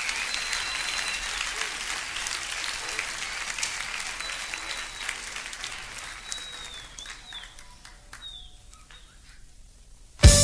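Live concert audience applauding with a few high whistles, dying away over about nine seconds. The band comes in with a loud hit right at the end.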